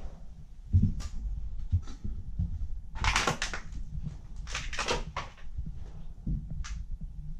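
Footsteps and rustling of clutter, with two louder scraping rustles about three and four and a half seconds in, over a low rumble of camera handling.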